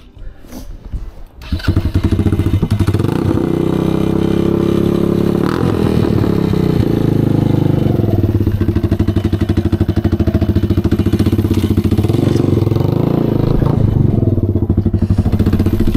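An engine starts abruptly about a second and a half in and keeps running close by, a steady rapid idle that rises and falls slightly in pitch a few times.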